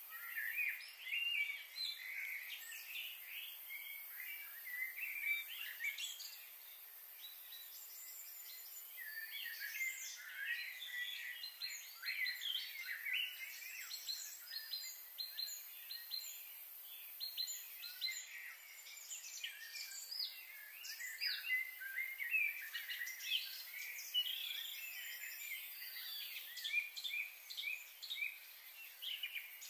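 Many small birds chirping and calling over one another in quick, short notes, over a steady high hiss.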